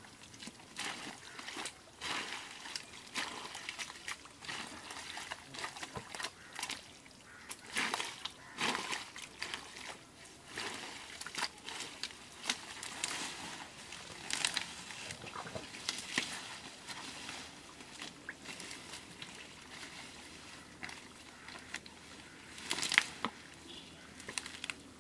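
Hands digging and groping through wet, watery mud: irregular squelches and splashes, the loudest splat about 23 seconds in.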